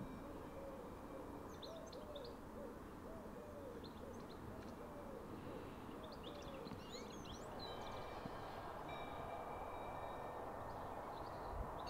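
Garden birdsong: a pigeon cooing a run of soft repeated coos, while small songbirds chirp and twitter at intervals. A steady background rush grows a little louder in the second half.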